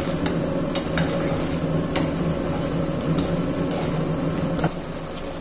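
Steel ladle stirring raw-papaya pickle as it cooks in thick sugar syrup in a stainless-steel saucepan: a steady sizzle with several clinks of the ladle against the pan. The syrup is being cooked down on a low flame to drive off the last of the water so the pickle keeps.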